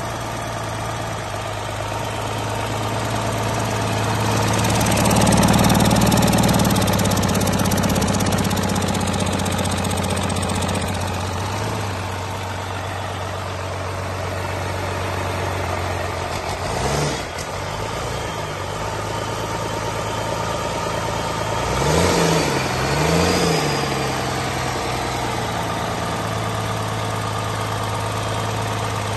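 Cummins 6BTAA-190, a 5.9-litre inline-six turbo diesel, running: idling, with the revs raised and held for several seconds about four seconds in, one quick blip of the throttle later, and two quick blips in a row near the end.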